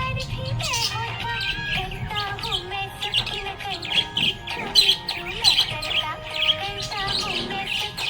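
Budgerigars chirping and warbling: a dense, unbroken run of quick high chirps mixed with wavering, gliding notes.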